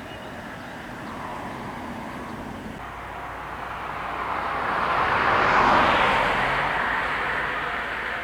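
Ohmi Railway electric train passing by: its running noise grows louder to a peak about five to six seconds in, then fades.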